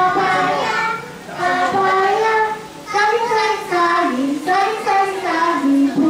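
A group of young children singing together, in sung phrases with short breaks between them.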